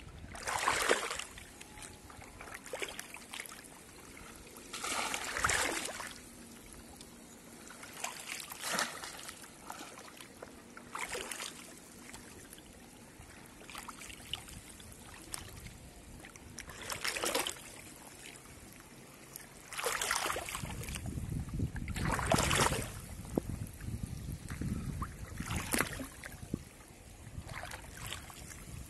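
Water splashing as a bamboo polo fish trap is lifted and plunged into shallow flooded water again and again, about eight splashes a few seconds apart, with softer sloshing between. A low rumble joins in about two-thirds of the way through.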